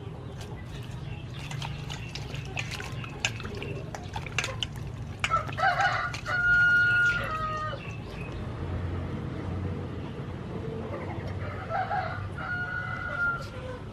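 A rooster crowing twice, a loud crow about five seconds in and a fainter one near the end, over small splashes and knocks from hands washing vegetables in a metal bowl of water.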